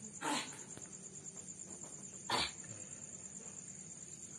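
Crickets chirring steadily, high-pitched, while a person twice hacks out mucus, briefly about a quarter second in and more loudly about two and a half seconds in: phlegm drawn from the nose and throat by a red betel leaf gurah.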